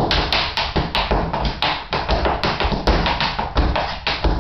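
Tap shoes striking a hard floor in a quick, dense run of taps: a short tap-dance routine.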